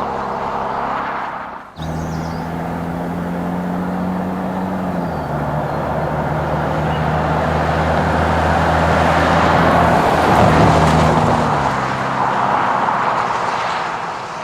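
RAM 1500's 3.0 L twin-turbo Hurricane inline-six running through an MBRP cat-back exhaust while the truck drives, the engine note dropping in pitch twice as it shifts up. Road and wind noise builds up under it, loudest past the middle, with a brief break near the start.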